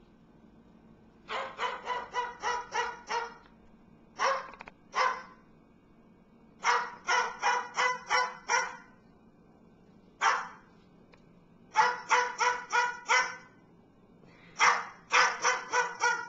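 A bird imitating a dog's barking: quick runs of several barks, about four a second, broken by single barks and short pauses.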